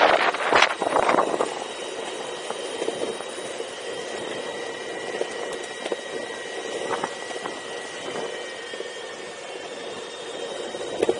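Steady engine-like drone with several constant high-pitched whining tones, after a few loud rushes of noise in the first second or so.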